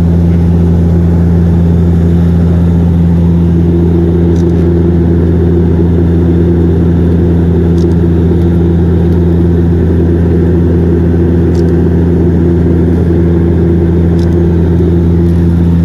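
Airplane engine drone heard inside the cabin in flight: a loud, steady low hum with several fixed tones over a rushing noise.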